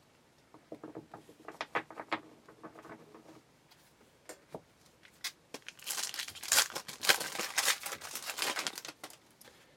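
Light rustles and clicks of trading cards being handled, then a burst of crinkling and tearing about six seconds in as a foil trading-card pack wrapper is opened, lasting about three seconds.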